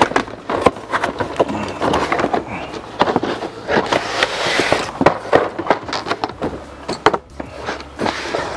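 Cardboard model-kit box being handled on a table: irregular knocks and taps as it is turned and set down, with a stretch of cardboard sliding and scraping about halfway through as the lid comes off the inner box.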